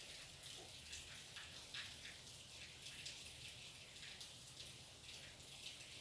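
Near silence: faint room hiss with a few soft ticks.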